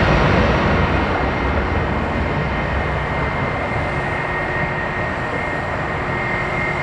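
Boeing 737-900ER's CFM56-7B jet engines at takeoff thrust: a steady rush of jet noise with a thin high whine, slowly getting quieter as the airliner moves away.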